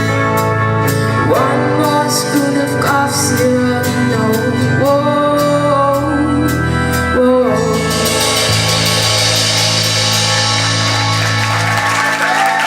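Rock band playing the instrumental end of a song: a guitar line bending in pitch over held chords and drums. About eight seconds in, a cymbal wash rises as the final chord rings out.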